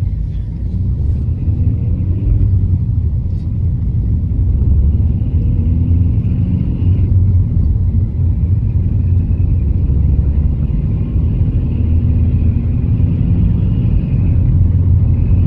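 Car being driven and accelerating: steady, loud low engine and road rumble that grows slightly louder about four seconds in. The owner is trying to catch a knock that appears only while the car is moving.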